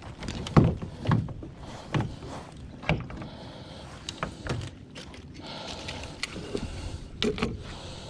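Irregular knocks and thumps on a plastic fishing kayak, a handful of sharp hits over a low haze, as a freshly landed redfish and gear are handled aboard.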